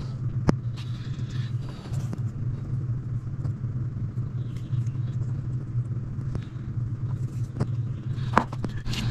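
A steady low hum, with a few sharp small clicks as tweezers work on a small plastic electronics module.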